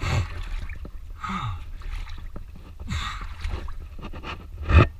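Water sloshing and splashing around a person wading deep in a pool on tiptoe, in surges about every second and a half, with a louder splash near the end.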